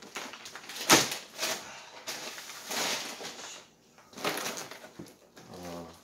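Plastic packaging rustling and crinkling as a 20-pound plastic bag of bird seed is handled, with a thud about a second in as it is set down on a wooden table. Further bursts of crinkling follow as plastic-wrapped food is pulled out of a canvas bag.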